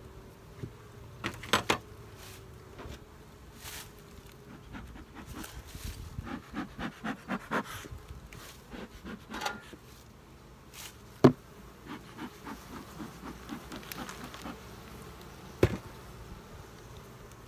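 Honey bees buzzing around an open hive, with a few sharp knocks from the hive tool and wooden hive parts. The loudest knock comes about eleven seconds in.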